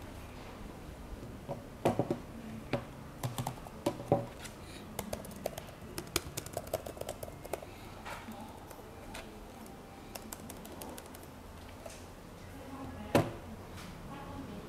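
Laptop keyboard clicking under the fingers and light handling taps on a Lenovo IdeaPad Slim 3, with a quick run of key clicks partway through. Near the end comes one sharp knock as the laptop is set down on a wooden tabletop.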